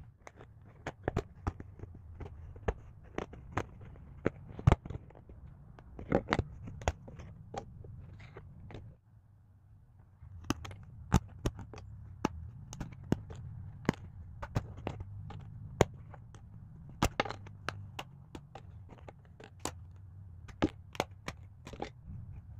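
Pieces being pressed by hand out of a die-cut card sheet for a 3D paper puzzle model: a long irregular run of sharp cracks and snaps as the card tabs break free, with a short pause about nine seconds in, over a low steady hum.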